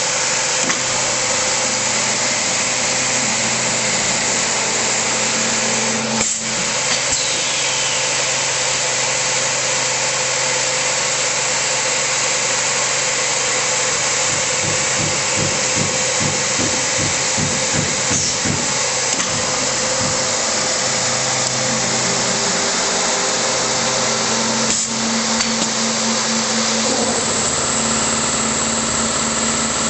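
MX3810B tenoning machine for chair parts running, its motors and cutters making a loud, steady mechanical noise. There are brief dips about six seconds in and again near 25 s, and a stretch of fast pulsing in the low range about halfway through.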